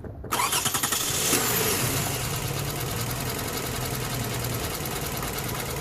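2006 Lexus ES 330's 3.3-litre V6 starting: a brief crank and catch about a third of a second in, then a steady idle.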